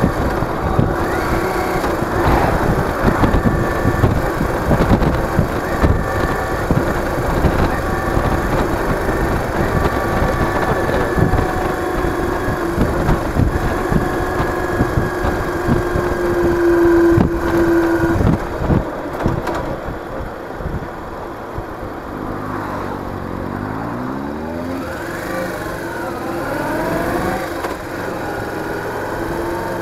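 Yamaha DragStar Classic's V-twin engine running steadily under way, with heavy wind and road rumble. About 18 seconds in the throttle eases off and the engine note drops. Near the end the note falls and rises again several times as the bike slows and picks up.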